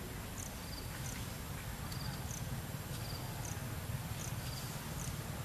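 Insects chirping: short, high chirps recurring about once a second, some as brief trills, over a steady outdoor hiss and a low rumble.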